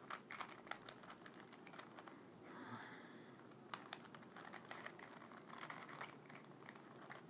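Faint plastic clicking of a Rubik's cube's layers being twisted by hand, in quick irregular runs of clicks.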